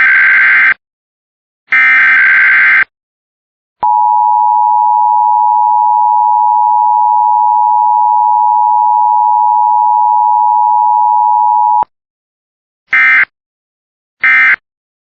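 Emergency Alert System test signal: two loud, harsh SAME header data bursts about a second apart, then the steady two-tone attention signal held for about eight seconds and cut off sharply. Near the end come short, evenly spaced data bursts, the end-of-message code.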